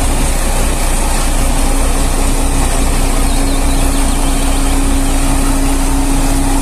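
Diesel engine of a Sakai SV515D single-drum road roller running steadily, a constant hum over a low pulsing rumble.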